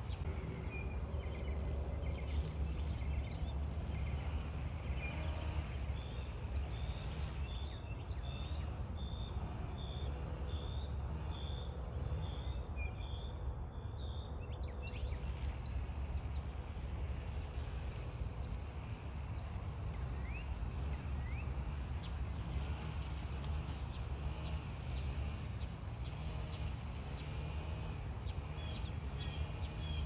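Outdoor ambience of small birds chirping over a steady low rumble. For several seconds near the middle, one bird repeats a short high note about twice a second.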